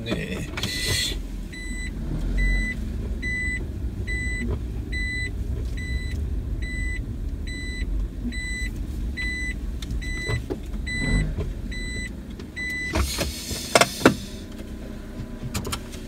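Car turn-signal indicator ticking evenly, about two and a half ticks a second, over low engine and road noise inside the cabin as the car turns off the road. Near the end the ticking stops and there is a brief burst of noise with two sharp knocks.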